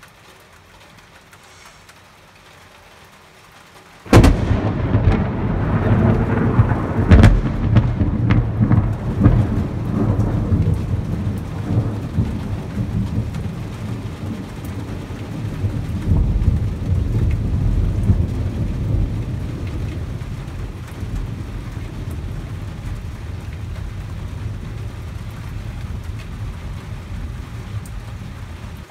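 Thunder from a close lightning strike: a sudden sharp crack about four seconds in, a few more cracks over the next few seconds, then a long low rolling rumble that slowly fades. Rain falls throughout.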